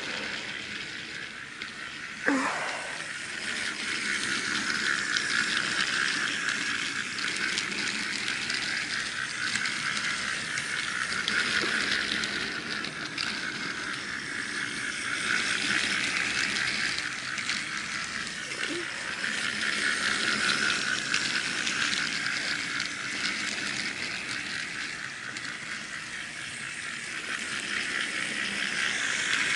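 Battery-powered toy train's small motor and plastic gears whirring, with wheels rattling over snap-together plastic track. The sound swells and fades every several seconds as the train circles the loop. There is one sharp knock about two seconds in.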